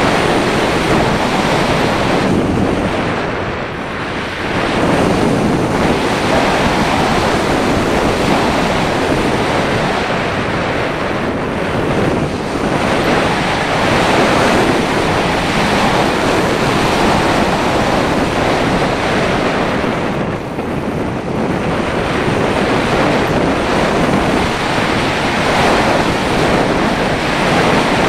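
Wind rushing over the microphone of an action camera on the nose of an unpowered Breta Models Starlite slope-soaring glider in flight. The rush swells and eases with the glider's airspeed, dipping briefly a few times.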